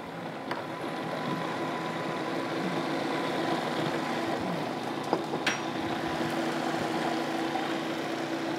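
Electric food processor motor running steadily, puréeing avocados, maple syrup and carob powder into a thick pudding.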